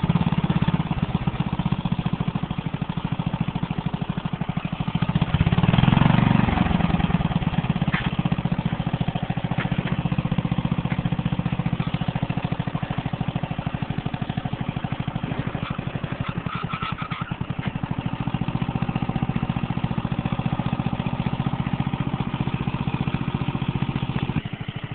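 12-horsepower riding lawn mower engine running under load as the mower crawls over rocks, with a steady rapid pulse. It swells louder about six seconds in.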